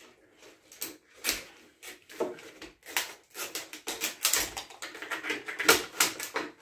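Utility knife cutting through a heat-shrunk PET bottle in a series of irregular, sharp strokes; the shrunken plastic has grown thick and is hard to cut.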